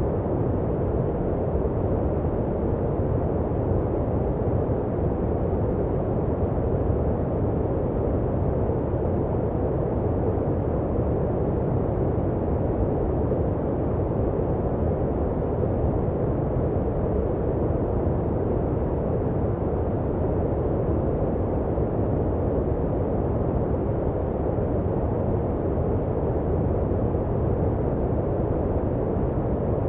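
Continuous sleep-machine noise track: an even, unchanging rush of noise, deep and muffled, with little hiss in the highs.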